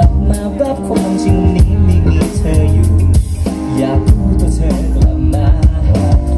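Live band playing a song through the stage PA: drum kit, electric guitar, bass guitar and keyboard, with a male lead singer's voice over them.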